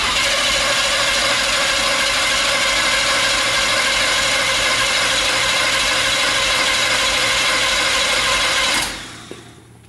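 A V8 engine cranked over by its starter for about nine seconds without catching, stopping near the end. The engine is flooded, and the distributor cap is on 180 degrees out, which they think keeps it from firing properly.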